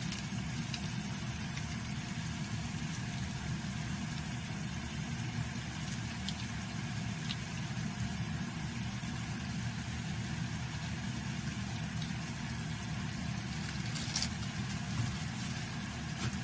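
A frying pan of pork and glass noodles simmering in water and japchae sauce, a steady low hum and hiss with a few light ticks, likely a utensil against the pan.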